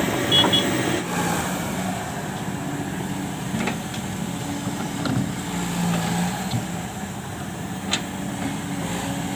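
Hydraulic excavator's diesel engine running steadily, with a couple of short, light knocks, one about eight seconds in.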